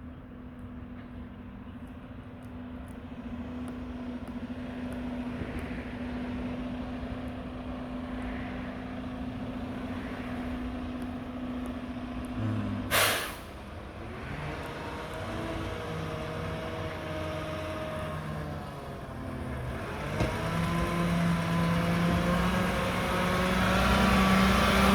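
Mack garbage truck with a McNeilus front-loader body: its diesel engine runs steadily, then a short sharp air-brake hiss comes a little past halfway. After that the engine pitch shifts and climbs, and it grows louder near the end.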